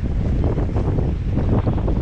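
Wind buffeting the microphone: a loud, rough, steady rumble.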